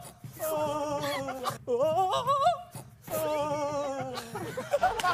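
A man imitating a walrus call with his voice: three drawn-out "eu-eo-eo-eo" cries in a row, the pitch wobbling and sliding.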